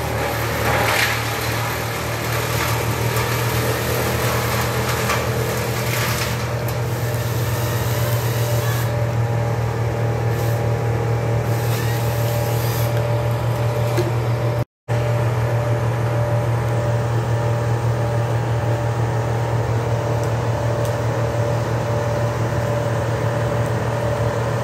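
Engine of a utility bucket truck running steadily to power the boom hydraulics, a constant low drone with some hissing noise over it in the first several seconds. The sound cuts out for a split second about fifteen seconds in.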